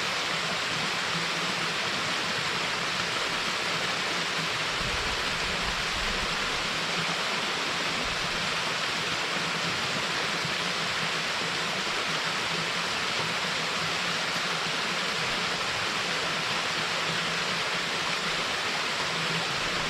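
Waterfall water rushing in a steady, even roar, with a brief low rumble about five seconds in.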